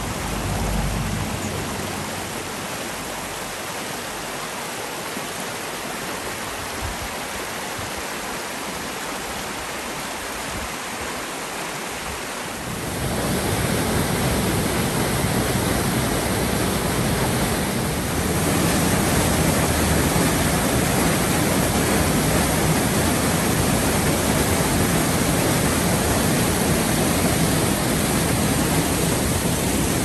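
Shallow stream rushing over rocks, then from about 13 seconds in the louder, fuller rush of a waterfall pouring into a pool.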